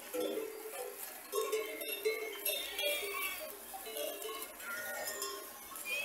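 Bells on a grazing flock of sheep clanking irregularly at many different pitches, with sheep bleating among them.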